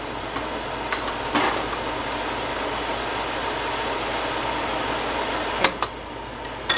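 Chicken livers and onions sizzling in a frying pan while a metal spoon stirs them, with a few knocks and clinks of the spoon against the pan, the sharpest about five and a half seconds in.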